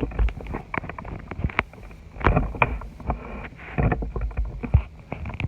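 Crunchy slime with Nerds candy mixed in, squeezed and kneaded by hand, giving irregular crackles, pops and squelches. Low bumps of the phone being handled come in among them.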